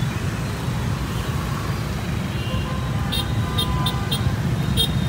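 Steady low rumble of street traffic. Starting about three seconds in, several short sharp clicks come at irregular intervals.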